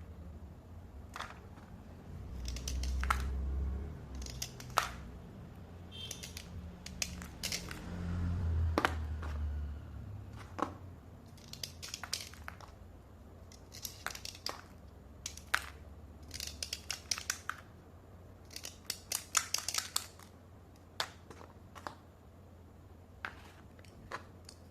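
Slate pencils being dry-scraped: an irregular run of short, sharp scraping and crunching strokes, some in quick clusters. Two spells of low handling rumble come in the first half.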